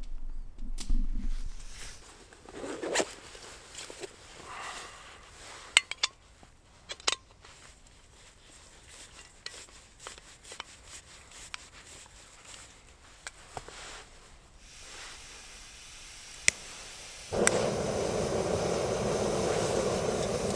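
Scattered sharp clicks, crackles and short scrapes of handling and movement on frozen ground. About 17 seconds in, a steady hissing rush starts suddenly and keeps going.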